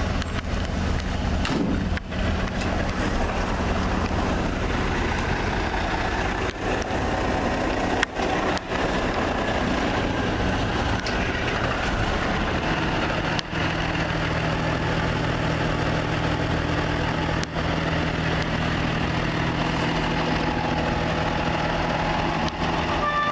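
Military 6x6 cargo truck engines idling, a steady low hum, with a few short knocks.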